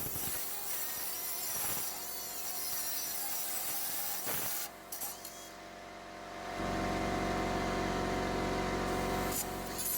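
Central Pneumatic 1/8-inch mini air die grinder running on compressed air, a steady hiss and whine. A louder run starts about six and a half seconds in and cuts off suddenly just before the end.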